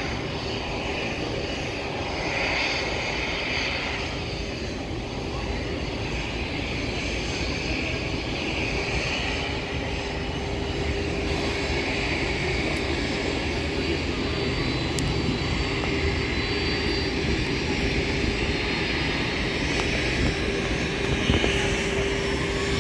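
Boeing 767's twin jet engines running on the runway for takeoff: a steady rushing noise with a held whine, slowly growing louder.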